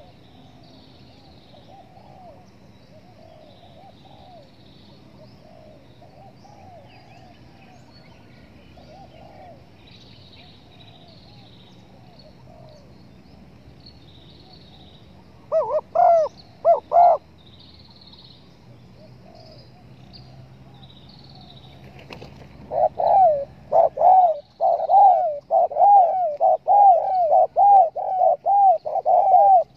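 Spotted doves cooing: faint coos at first, a short loud burst of coos a little past halfway, then from about three quarters in a loud, fast run of coos, several a second. Faint high chirps of small birds sound over it.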